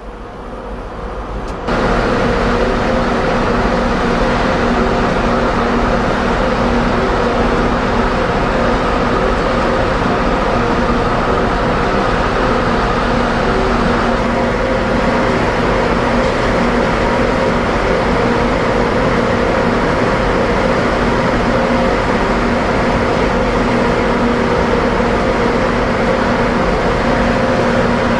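Steady loud mechanical hum of shipboard machinery with several steady tones in it, starting abruptly about two seconds in.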